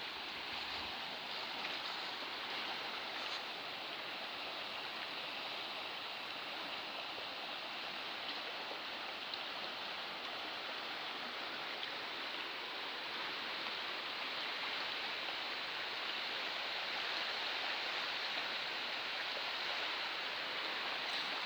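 River water rushing steadily over its bed.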